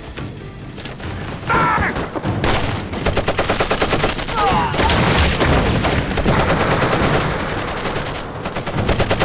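Machine guns firing long rapid bursts, starting about two seconds in and going on almost without a break.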